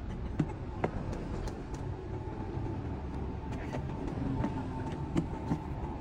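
Low, steady rumble of highway traffic, with a faint whine that builds in the second half as a vehicle approaches. A few light knocks come through, about half a second in, just before one second and past five seconds.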